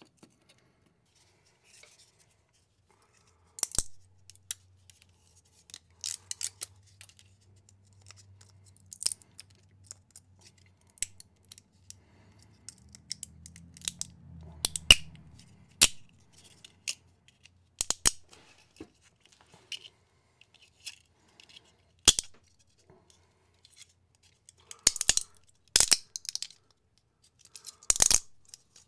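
Small flush cutters snipping 3D-printed plastic support material off a printed figure. Irregular sharp snips and clicks, some single and some in quick clusters, busiest toward the end.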